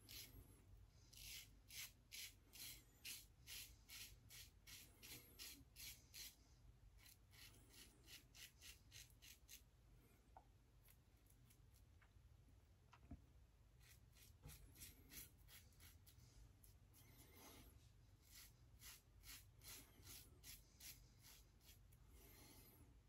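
Faint, quick scraping strokes of a Shave It Shadow aluminium double-edge safety razor cutting lathered stubble on the neck, two or three a second, with a quieter pause midway.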